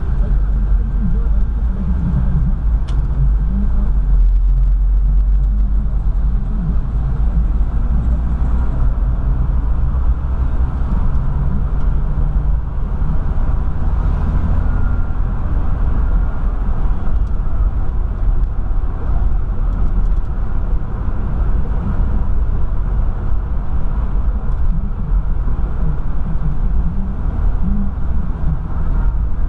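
An older car's engine and road noise heard from inside the cabin while driving: a steady, loud low rumble, with the engine note shifting slightly in pitch.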